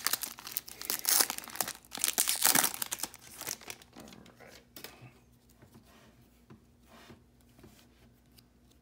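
Foil wrapper of a Topps baseball card pack being torn open and crinkled, loud and dense for the first three seconds or so. After that, only faint rustles and clicks as the stack of cards is slid out and handled.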